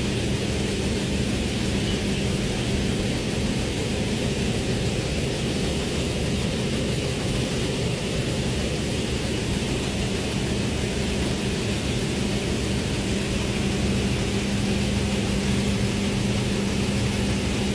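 Steady machine drone: an even rushing noise with a constant low hum that does not change.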